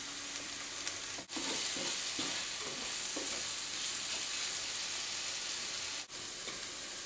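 Steady sizzle of sliced porcini mushrooms frying in olive oil in a frying pan, with a wooden spatula stirring through the pans. The sound briefly cuts out twice.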